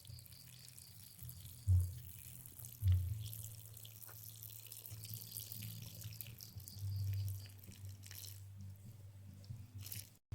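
Wet, spluttering diarrhoea farts: short low blasts about two and three seconds in and a longer one a few seconds later. Between them runs a constant wet crackle and spatter like dripping.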